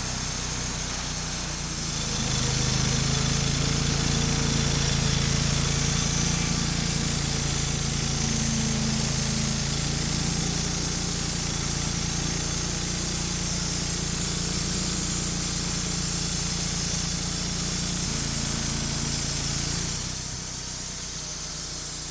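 Wood-Mizer LT35 band sawmill making a cut through a black walnut log: a steady loud hiss from the blade, with the engine note rising under load about two seconds in and easing off near the end as the cut finishes.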